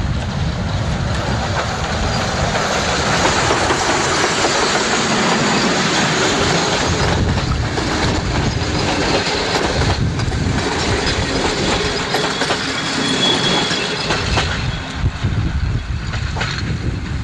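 PKP class Ol49 steam locomotive no. 4 and its passenger coaches passing close by: a loud, steady rush of running noise, with clicks from the wheels over the rail joints.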